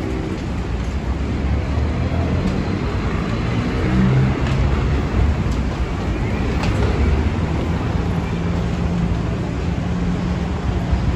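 Steady road traffic below an elevated walkway: a continuous low rumble with passing engine hum.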